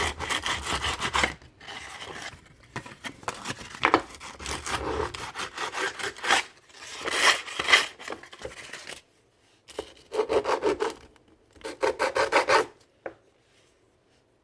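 Sandpaper rubbed by hand over a Goatguns SVD miniature model part in quick back-and-forth scratching strokes. It comes in several spells with short breaks, then stops about a second before the end.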